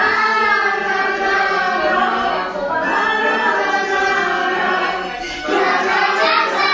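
A group of children singing a song together as a choir.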